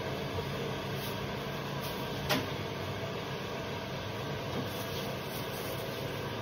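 Steady mechanical hum of kitchen equipment, holding several fixed tones, with one short sharp click a little over two seconds in.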